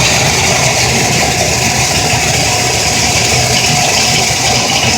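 Dryer vent cleaning equipment running steadily in the vent duct: a constant motor noise with a loud rushing hiss.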